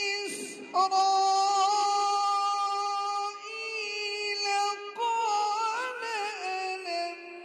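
Melodic Quran recitation (tajweed): a single voice chanting in long held notes with ornamented turns, with a breath taken just under a second in.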